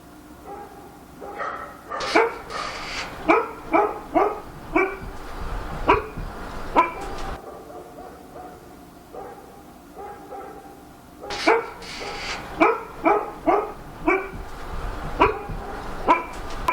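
A dog barking in two bouts of repeated barks, about two a second, with a short lull between them.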